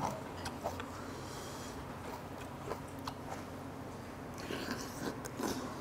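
Close-up eating sounds of a man chewing and slurping a forkful of army stew with noodles. Small clicks are scattered through it, over a low steady hum.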